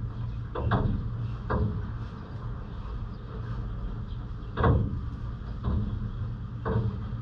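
Steady low rumble of city traffic, with about five short sharp taps scattered through it; the loudest comes a little before halfway.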